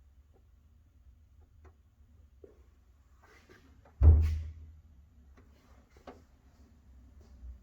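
One heavy thud about four seconds in, among faint clicks and knocks from work on a car interior.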